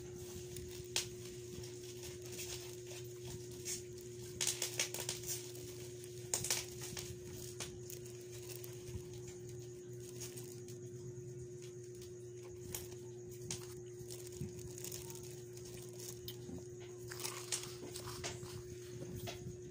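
Scattered light clicks and rustles as a plastic-wrapped mini sewing machine is handled and turned over, over a steady low hum.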